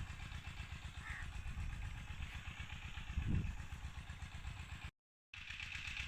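An engine running steadily, with a fast, even low pulsing. The sound cuts out completely for about half a second near the end, then resumes.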